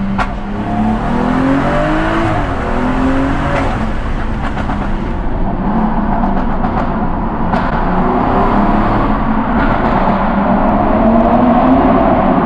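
Tuned BMW M135i's turbocharged straight-six heard from inside the cabin under acceleration, its pitch climbing through the revs, with a second pull near the end.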